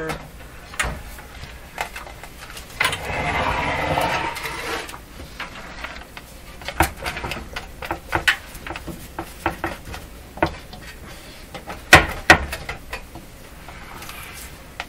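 Radio receiver chassis being worked loose in its cabinet: scattered clicks and knocks, a scraping rub about three seconds in that lasts a couple of seconds, and two sharp knocks about twelve seconds in.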